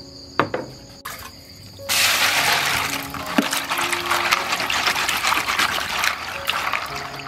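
A hand swishing and rubbing dried noodles around in a plastic basin of water, a steady splashing and sloshing that starts about two seconds in. A short knock comes just before it.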